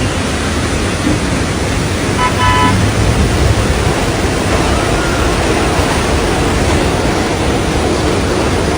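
Loud, steady rush of a flooded street in a heavy downpour, with a car horn tooting briefly about two seconds in.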